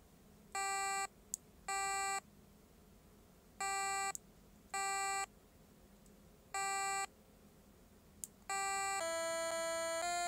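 A micro:bit's built-in speaker playing short electronic beeps on one pitch from a simple sequencer program: two pairs of beeps and then a single one, with three sharp clicks in the gaps. About 8.5 seconds in, a run of longer notes begins and steps down in pitch.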